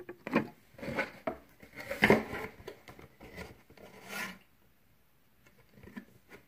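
Fingers rubbing a sticker flat onto a plastic toy horse stable: a run of short scrapes and taps that stops about four and a half seconds in.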